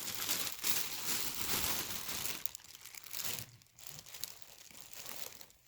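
Plastic bag crinkling and rustling as yarn is dug out and handled. The rustling is dense for the first two seconds or so, then comes in shorter, quieter bursts.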